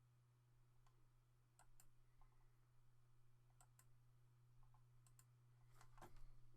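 Faint computer mouse clicks, a dozen or so, several in quick pairs, over a steady low hum.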